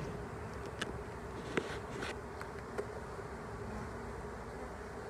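Honeybees buzzing in a steady drone around an opened hive box, with a few short sharp clicks in the first three seconds as a hive tool pries a frame loose.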